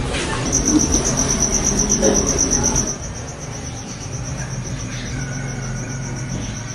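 A cricket chirping in the background: a rapid, even, high-pitched pulsing that starts about half a second in and grows fainter after about three seconds, over low background noise.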